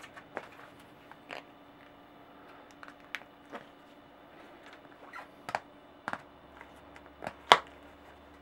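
Blue plastic tire lever working the bead of a knobby Maxxis Raze cyclocross tire over the rim: irregular clicks and snaps of lever, bead and rim, the loudest sharp snap near the end.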